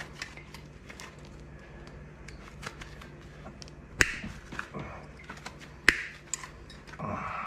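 Pliers gripping and working a cast fishing sinker off its wire: quiet metal scraping and ticking, with two sharp clicks about four and six seconds in.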